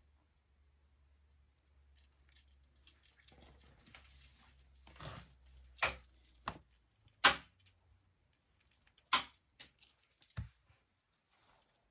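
Objects being handled close up: light rustling, then a handful of sharp clicks and taps, the loudest about seven seconds in, and a dull low knock near the end.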